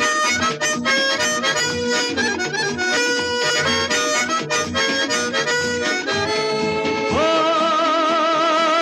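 Background music: a fast melody on a reed instrument with a steady rhythm, then a single held note with vibrato from about seven seconds in.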